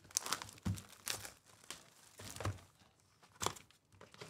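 Plastic shrink wrap on a Topps baseball card hobby box crinkling and tearing as it is stripped off, in several short separate bursts, while the cardboard box is opened.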